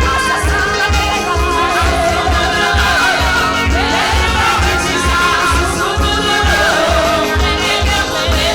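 Gospel praise-and-worship music: singing over a steady, fast bass beat.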